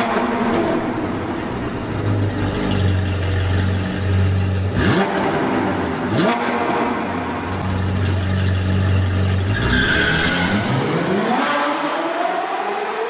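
Sports car engine revving and running hard through the gears. There are quick upward revs about five and six seconds in, and a long rising rev near the end.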